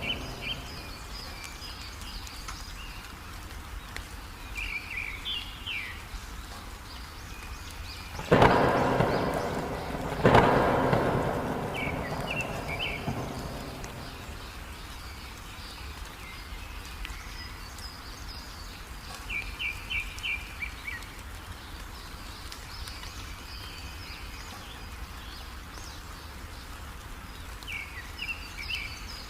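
Steady heavy rain with a bird chirping in short, repeated phrases every several seconds. Two sudden thunderclaps come about eight and ten seconds in, each dying away over a second or two.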